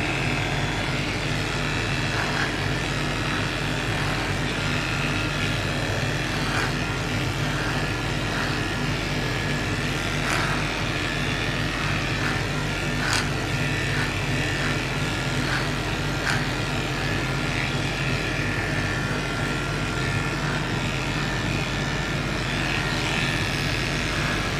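Handheld electric dog-grooming clipper running steadily as it shaves a pug cross's neck and chest fur, with a few short clicks.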